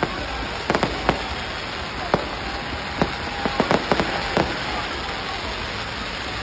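Fireworks crackling over a steady hiss, with scattered sharp pops and bangs that come thickest about three to four and a half seconds in.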